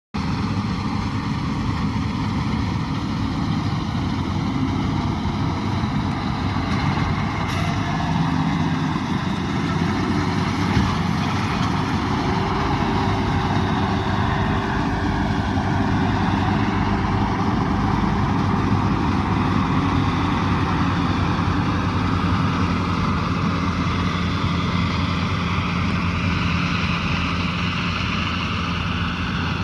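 Rice combine harvester running steadily at working speed, an engine drone with the noise of its threshing machinery; its pitch dips slightly and recovers about halfway through.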